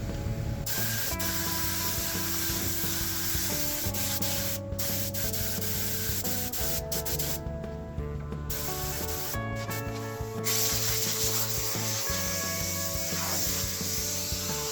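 Sanding on a car body panel, a steady rubbing hiss, over background music with held notes that change every second or two.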